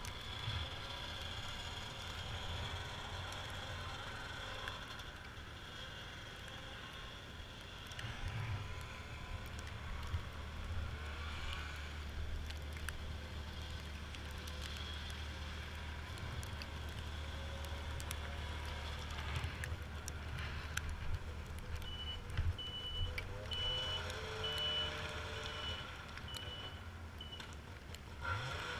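Snowmobile engine running steadily. About three-quarters of the way through, a reverse-warning beeper sounds about eight short, evenly spaced beeps over five seconds: the signal that a snowmobile is in reverse.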